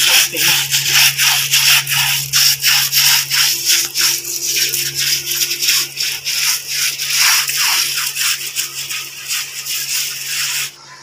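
Bar of soap scrubbed briskly back and forth over a charpai's wet woven cord webbing, a rapid rubbing rhythm of about three to four strokes a second that cuts off near the end.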